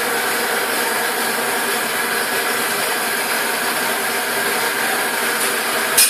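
Steady mechanical running noise of workshop machinery, with one short sharp click near the end.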